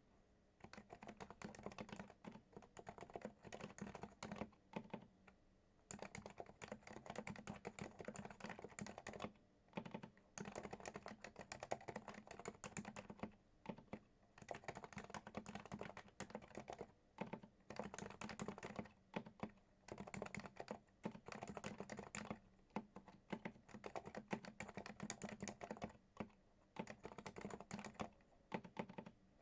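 Fast typing on a silenced Topre electrostatic-capacitive keyboard: soft, muted keystrokes in quick runs, broken by short pauses every second or two.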